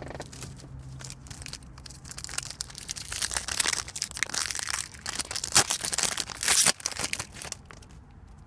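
Plastic-foil wrapper of a football trading card pack crinkling loudly as it is handled and torn open. It starts about two seconds in, is loudest toward the end, then stops.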